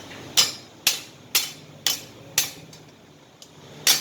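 Hammer blows on welded sheet metal, sharp metallic strikes about every half second for five blows, then one more near the end. The welded piece is being pounded to test the weld, which holds while the sheet metal tears.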